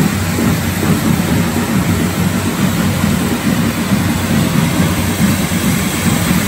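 Many firework spark fountains (carretilles) mounted on a correfoc fire dragon burning together: a loud, steady rushing hiss with a deep roar underneath.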